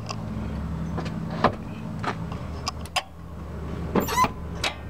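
1996 Massey Ferguson 6150 tractor's diesel engine running steadily at idle, with a few sharp clicks over it.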